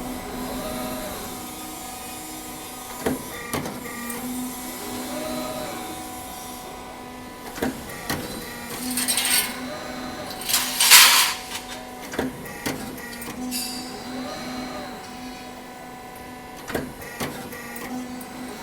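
Garage door track roll forming machine running at its punching station: a steady machine hum with rising-and-falling sweeps, sharp knocks every few seconds as the punch strokes, and two loud bursts of hiss about nine and eleven seconds in.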